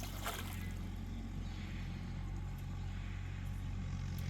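A motor running steadily with an even, unchanging drone, and a couple of sharp clicks or knocks right at the start.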